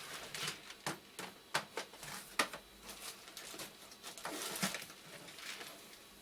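Small electronic parts, potentiometers, being handled and sorted by hand, with irregular light clicks and rustles.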